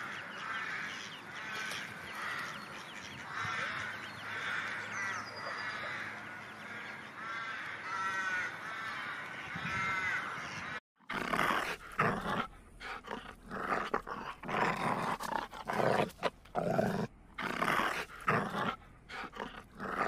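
Mallard ducklings peeping in a busy stream of short, high, arched chirps. About eleven seconds in, after a brief cut, a dog barks and growls in louder, irregular bursts.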